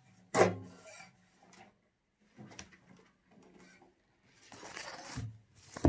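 Acoustic guitar struck once about half a second in and dying away within a second. Then faint handling noises, a short rustle, and a knock near the end.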